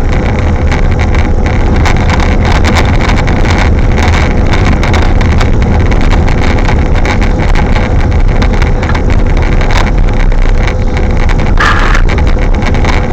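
Strong wind buffeting the microphone: a loud, steady rumble with a gusty crackle.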